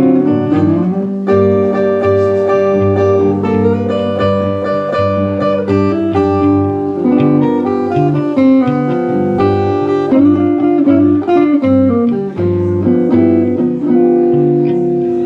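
Blues guitar playing the closing instrumental bars of a song, with notes bending in pitch past the middle and a final chord held and fading near the end.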